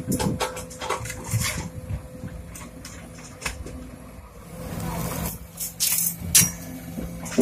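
Sumitomo SH210 hydraulic excavator's diesel engine running as it swings a loaded bucket over a dump truck, with scattered knocks. The engine note grows louder and steadier past halfway as the machine works. Near the end, soil from the bucket thuds into the steel truck bed.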